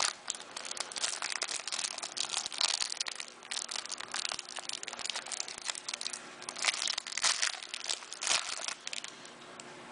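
Trading card pack wrappers crinkling and tearing as the packs are opened by hand, with dense, irregular rustling and crackling.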